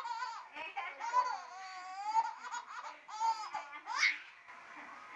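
A seven-month-old baby laughing in a string of high-pitched, pulsing giggles, with a sharp rising squeal about four seconds in; quieter near the end.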